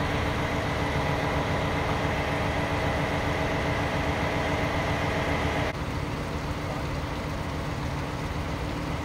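A vehicle engine idling steadily with a constant whine over it. The sound drops abruptly to a quieter level a little before six seconds in.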